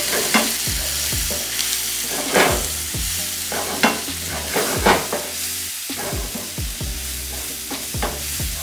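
Onion, tomato, cashews and ground spices sizzling in hot oil in a nonstick frying pan while a wooden spoon stirs and scrapes them around: a steady sizzle under repeated scraping strokes, a few of them louder about two and a half, four and five seconds in.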